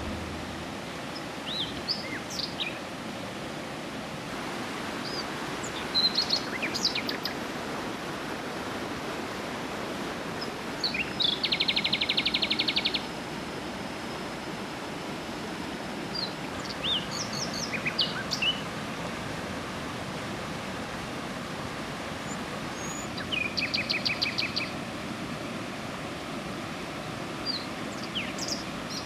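Steady rush of a river with birds calling over it: scattered short chirps and whistles, and twice a fast trill of rapidly repeated notes, the first and loudest lasting about two seconds midway through, the second shorter near the end.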